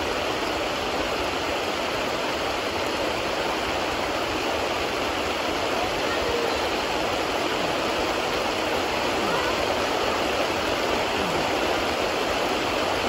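Steady, unbroken rushing-water noise from a fast-flowing, rain-swollen river and falling rain.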